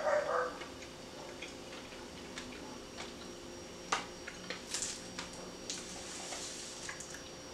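A short dog bark right at the start, then quiet room tone with scattered small clicks and a light crinkle of a truffle's wrapper being handled about four to seven seconds in.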